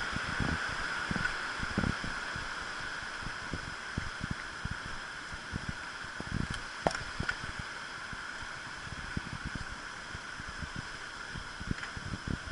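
Steady rush of a river in spate, swollen by typhoon rain, with wind buffeting the microphone and a sharp click about seven seconds in.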